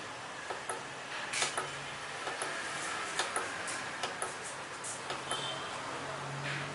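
Irregular clicks of push-buttons being pressed one at a time on the keypad of a microcontroller school-bell control unit, over a steady hiss, with a short high tone about five seconds in.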